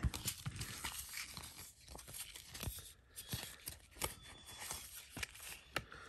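Cardboard box and folded paper instruction leaflet being handled: faint rustling and crinkling with scattered small clicks and taps.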